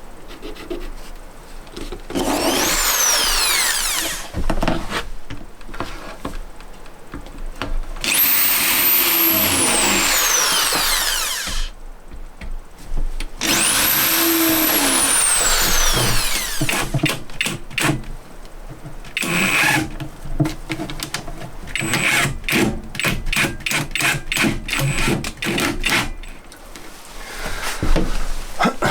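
Handheld power tool, likely a drill, working wood in three bursts of a few seconds each, its pitch rising and falling as it spins up and slows. These are followed by a long run of quick, sharp knocks.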